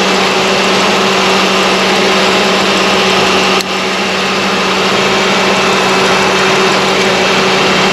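Mercury Sable's 3.0-litre V6 idling steadily with the hood up, just started and warming up after a new thermostat was fitted.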